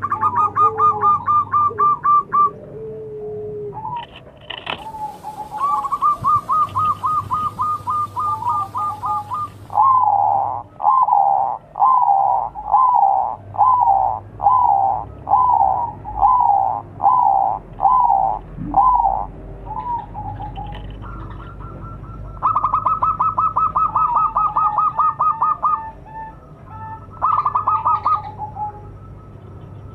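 Zebra dove (perkutut) cooing in its rhythmic staccato song: quick runs of short notes, and in the middle a run of a dozen or so louder, evenly spaced coos, about one every 0.7 seconds.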